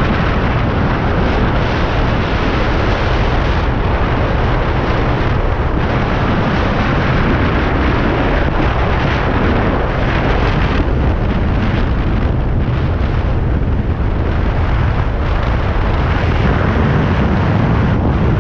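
Heavy, steady wind buffeting on the microphone of a Honda PCX 160 scooter riding at highway speed, close to 100 km/h, drowning out other sound.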